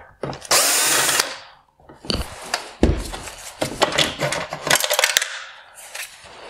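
A cordless power driver runs once for under a second, backing out a T20 Torx screw from the plastic headlight housing. It is followed by a string of sharp plastic clicks, knocks and scrapes as the clear turn signal reflector is worked loose and lifted out.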